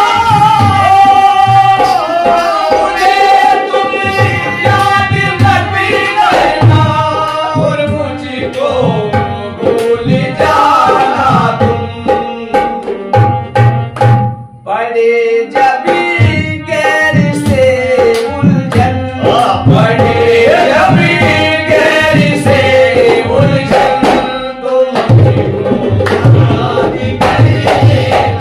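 Men singing a folk ghazal in Hindi to harmonium and dholak drum, with the dholak keeping a steady beat under the voices. The playing drops out briefly about halfway, then picks up again.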